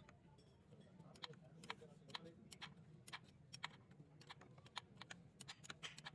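Light, sharp clicks and taps at an irregular pace, a few a second, starting about a second in, over a faint steady low hum.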